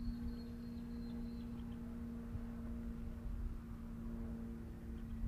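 A steady hum held at one pitch, with a few fainter overtones, over a low rumble of wind on the microphone.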